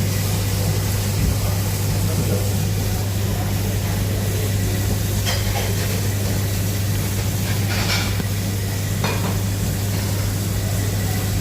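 Starline commercial dishwasher running mid-wash: a steady motor hum under the hiss of water spraying inside the machine, with three brief knocks about five, eight and nine seconds in.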